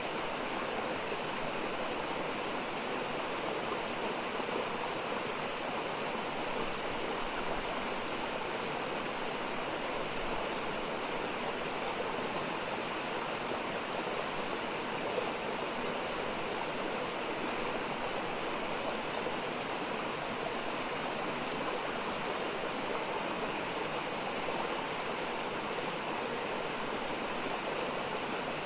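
Mountain stream rushing steadily over rocks, a constant even flow.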